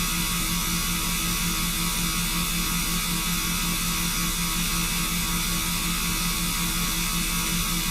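Loud electrical buzz: a steady hum with a harsh hiss above it, the noise of high-voltage electrical equipment such as that on a power pole.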